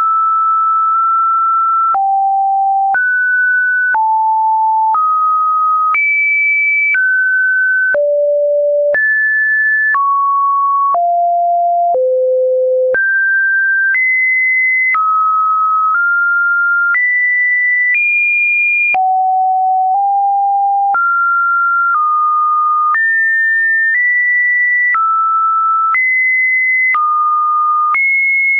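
Computer-generated test tones: a single pure sine tone that jumps to a new, random pitch once a second, ranging between about 500 Hz and 2.5 kHz, with a short click at each change.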